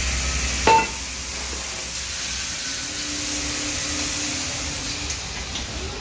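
A single sharp metallic clank about a second in, ringing briefly, from the steel tube frame and rails of a motorcycle lift platform, over a steady hiss of workshop noise.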